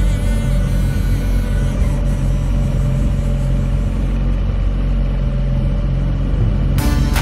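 Wooden motorboat's engine running steadily under way, a low even drone.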